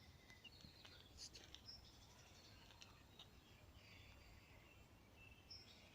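Near silence outdoors, with faint distant birdsong: scattered short, high chirps over a faint steady background hush.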